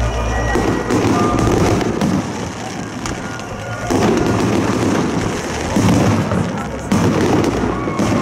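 Fireworks going off in a continuous salvo: dense crackling with sharp bangs every second or two.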